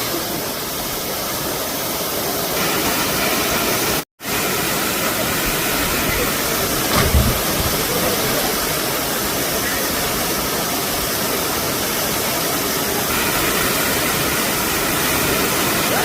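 Steady loud rushing noise, broken by a brief dead-silent cut about four seconds in.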